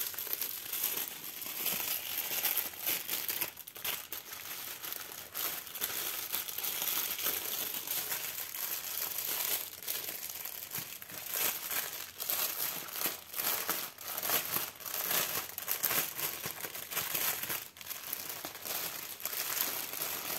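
Crinkling of clear plastic zip bags of round diamond-painting drills as they are handled and unwrapped: an uneven, crackly rustle with short pauses.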